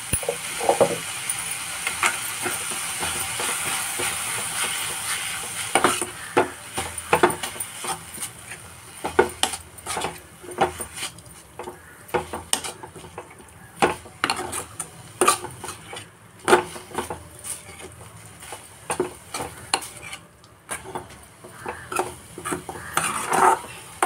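Metal spoon stirring and scraping minced chicken stuffing around a metal pan, with the mince frying. A steady sizzle fills the first few seconds, then irregular clinks and scrapes of the spoon on the pan run on to the end.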